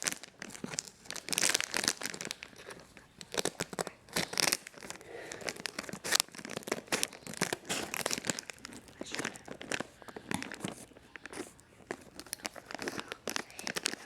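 Packaging crinkling and tearing as it is handled and opened, in irregular rustles and rips.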